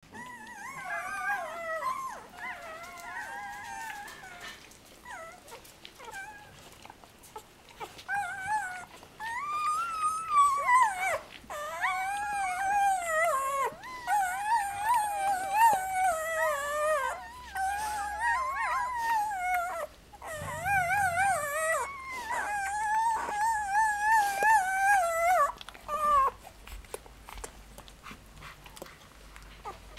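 Day-old German shorthaired pointer puppies whimpering and squealing in high, wavering cries, often several at once. After a lull a few seconds in, the cries run almost without a break until near the end.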